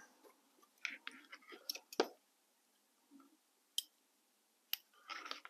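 Faint, scattered clicks from a self-adjusting wire stripper and a thin wire being handled and clamped, with the sharpest snap about two seconds in and a short rustle near the end.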